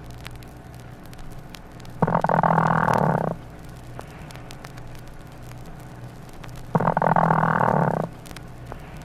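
Mother hen's roosting call to her chicks, a purring trill like a contented cat's, given twice and each lasting about a second and a half: the call by which she settles for the night and calls her chicks to be brooded.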